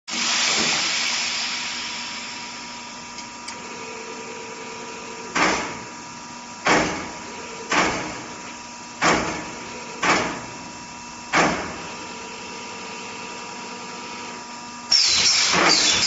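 Pneumatic radiator tank crimping machine working over a steady machine hum. A loud hiss of air fades away at the start. Then come six sudden sharp bursts about a second apart, each dying away quickly, and about a second before the end a loud continuous hiss with rattling begins.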